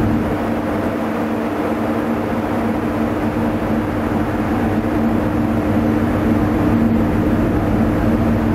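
A ship's diesel engine drone, steady and unbroken, with two low tones held throughout, mixed with a rushing of wind and water.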